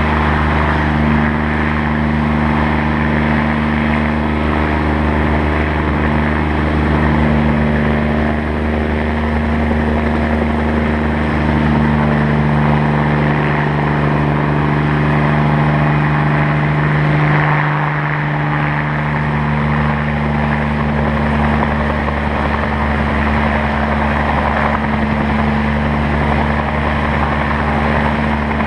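Bell 47 G2 helicopter running on the ground, its piston engine and turning rotor making a steady drone. The pitch wavers briefly about 18 seconds in.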